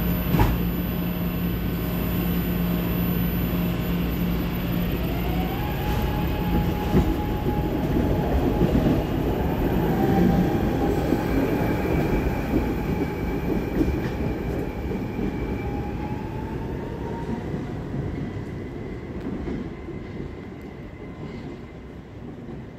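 SEPTA Market-Frankford Line train (M-4 cars) pulling out of the station, with a clunk just after the start. Its electric motors whine, rising in pitch and then holding steady, while the wheels rumble on the rails. It grows loudest as the last cars pass, then fades as the train moves off down the track.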